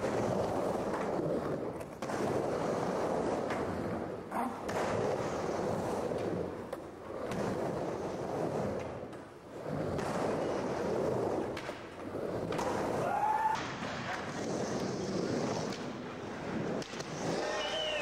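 Skateboard wheels rolling over an indoor ramp and bowl, a steady rumble that swells and fades every couple of seconds as the riders carve up and down the transitions.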